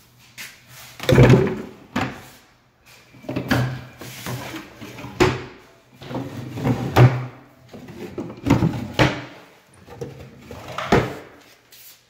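Cabinet drawers being pulled open and pushed shut, several times in a row, each with a sliding rumble and a knock.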